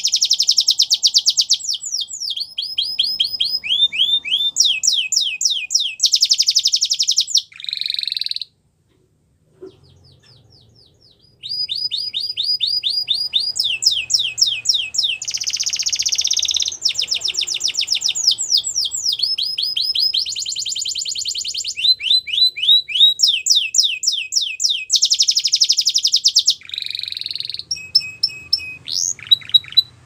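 Domestic canary singing: a string of rapid trills, each a fast run of one repeated note, switching to a new trill every second or two. The song breaks off for about three seconds a third of the way through, then resumes.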